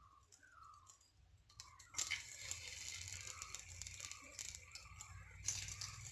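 Hot oil sizzling faintly in a nonstick pan as rice-flour-coated mackerel fillets are laid in. The sizzle starts about two seconds in and surges louder near the end as another piece goes into the oil.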